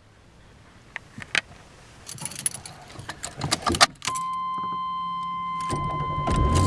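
Car keys jangling and clicking into the ignition of a 1989 Chevrolet Cavalier Z24. About four seconds in, a steady high warning tone comes on with the key turned on, then near the end the 2.8-litre multiport fuel-injected V6 cranks and starts.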